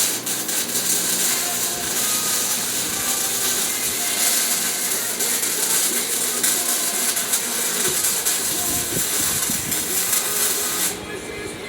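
Welding arc crackling and hissing steadily as a bead is laid on an engine stand with a Harbor Freight welder, then cutting off abruptly about eleven seconds in.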